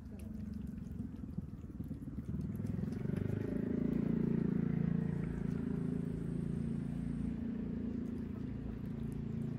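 A passing motor vehicle's engine, getting louder to a peak about four to five seconds in and then slowly fading.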